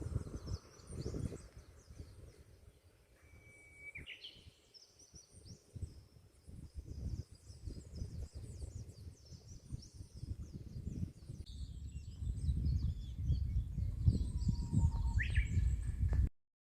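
Wild birds chirping and calling, several short whistled notes among them, over a low rumble that grows heavier in the last few seconds.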